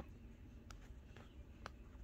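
Near silence: room tone with two faint clicks, about a second apart.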